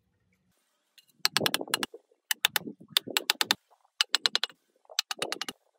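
Sharp, rapid clicking in short bursts of four to six clicks, about five bursts, as hard objects are tapped together.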